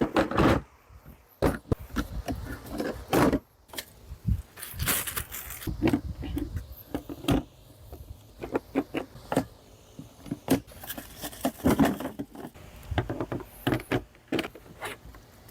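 Clattering, clicking and scraping of a folding work table being handled and opened out, with a string of sharp knocks and short scrapes.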